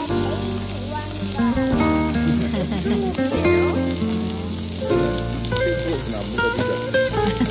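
Background music with held notes and a bass line, over meat sizzling on a tabletop barbecue grill plate.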